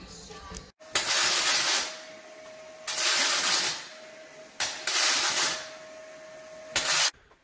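Arc welding on an aluminum jon boat's frame: four bursts of hiss, the first three about a second each and a short one near the end, with a steady tone running underneath.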